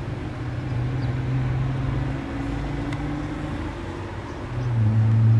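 Steady low engine rumble with a deep hum that fades about two seconds in and swells back near the end.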